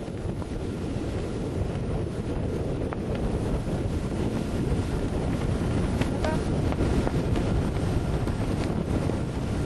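Wind buffeting the microphone aboard a sailing yacht under way: a steady low rumble of noise.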